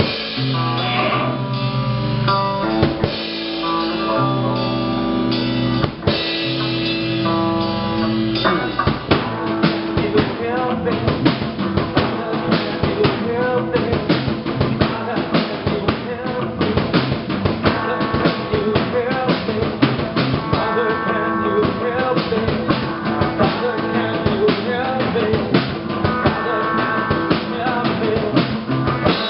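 Live rock band playing: guitars hold ringing chords over sparse drum hits, and about eight seconds in the drums come in with a steady, fast beat under the guitars and bass.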